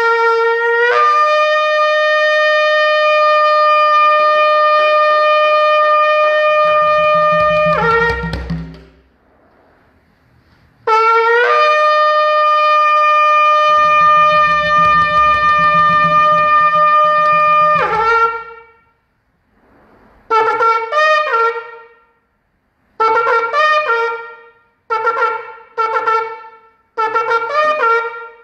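A curved hand-held horn blown in two long held blasts of about seven seconds each, each opening with an upward slide in pitch. Then come four shorter bursts of quick, broken calls, their notes sliding down at the ends.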